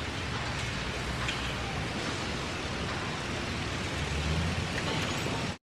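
Steady rushing noise with a low rumble underneath, a little stronger near the end, then cut off abruptly.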